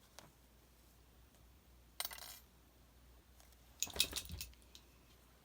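Small hard objects clinking and clattering on a work table: a short rattle about two seconds in, then a louder burst of several clicks a couple of seconds later.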